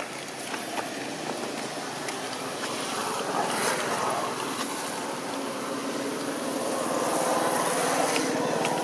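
A motor vehicle's engine running in the background, growing gradually louder.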